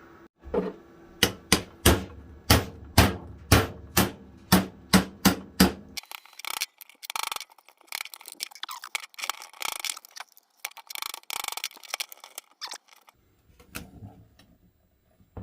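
A rapid run of sharp knocks, several a second for about six seconds, as a tool is driven into the plastic case of a lithium iron phosphate battery. This is followed by crackling and scraping as the case is pried apart, then quieter handling near the end.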